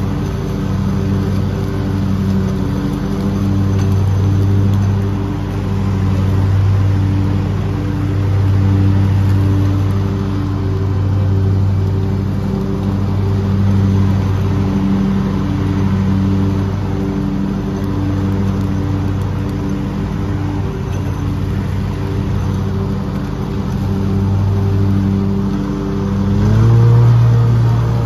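Lawn mower engine running steadily under load, swelling and fading in loudness every couple of seconds. Near the end the engine speeds up, its pitch stepping higher and its sound getting louder.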